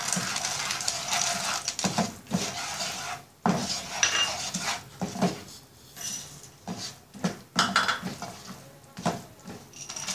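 Peanuts tipped from a glass bowl into hot melted jaggery in a frying pan, then stirred in with a wooden spatula: irregular scraping and knocking against the pan. The pouring is densest in the first two seconds or so.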